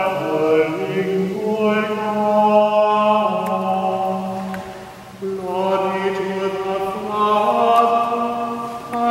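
Sung liturgical chant: slow, held notes moving step by step, with a short break between phrases about five seconds in.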